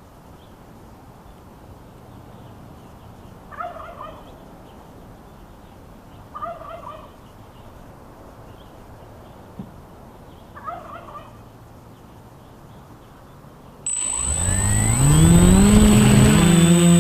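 Three short warbling calls a few seconds apart over a low steady background. About 14 s in, the quadcopter's electric motors spin up. Their whine rises in pitch and then holds steady, much louder than anything before it.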